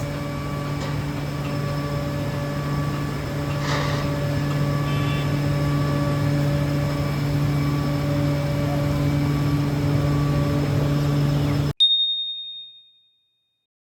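A steady machine hum with one even low tone. It cuts off abruptly near the end, and a single high chime rings out and fades.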